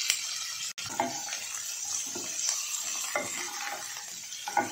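Boiled potato pieces sizzling in hot oil in a nonstick kadhai while a slotted spatula stirs them, scraping against the pan in strokes about once a second, with the loudest knock near the end.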